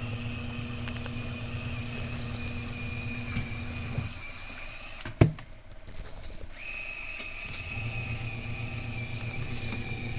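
Thanko USB-powered bucket washer's small motor running with a steady high whine and low hum. It stops about four seconds in, a single sharp click comes about a second later, then it starts up again: the intermittent left-and-right turning of its wash cycle.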